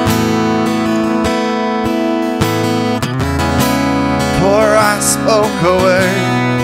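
Acoustic guitars strumming a slow worship-song accompaniment; about four and a half seconds in, singing voices come in over the guitars.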